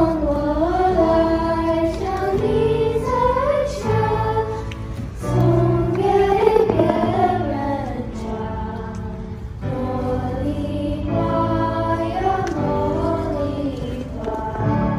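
Singing with instrumental accompaniment: a gliding sung melody over sustained low backing chords.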